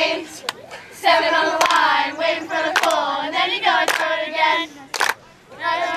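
A group of girls singing or chanting a team cheer together in short phrases, with sharp hand claps between and over the lines.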